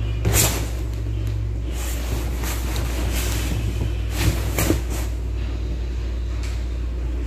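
A cat scrabbling on a leather sofa: several short scratchy scuffs, the loudest about a third of a second in and two more around four seconds in, over a steady low hum.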